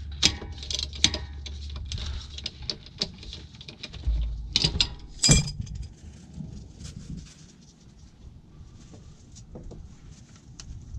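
Socket wrench clicking and clattering on the steel oil-pan drain plug as it is cracked loose, then the plug being turned out by hand, with a louder knock about five seconds in.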